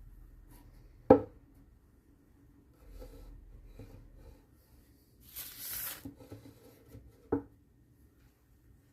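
Workbench handling noises: a sharp knock about a second in, a brief rubbing hiss past the middle, and a second, weaker knock near the end.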